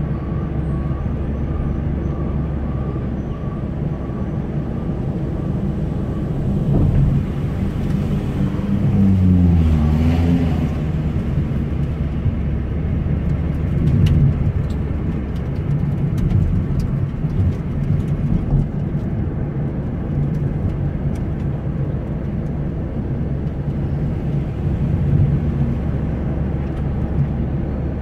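A car driving along a road: steady engine and road rumble. About a third of the way in, the engine note drops and then rises again.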